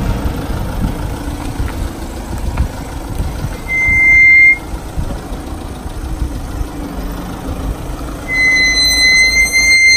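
2011 Skoda Superb's rear brakes squealing as the car slows and stops: a short, high, steady squeal about four seconds in and a longer one from about eight seconds in, over a low rumble. The rear calipers are sticking and not retracting, their pistons most likely seized with rust.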